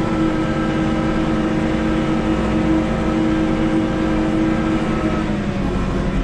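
Tractor engine running steadily with an even hum, its pitch dropping slightly near the end.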